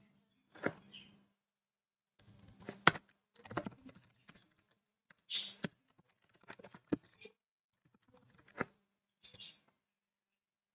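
Computer keyboard typing: faint, sparse keystrokes at irregular intervals, with short pauses between them.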